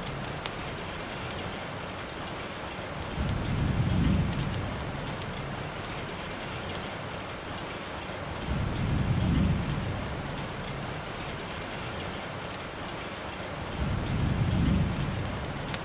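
Steady rain falling, with a fine patter of drops. Three times, at even intervals of about five seconds, a low rumble swells up under the rain and fades away.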